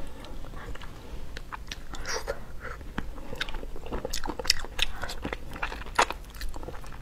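A person eating spicy braised duck: many irregular sharp clicks and wet mouth sounds as small pieces are bitten, chewed and picked off the bone.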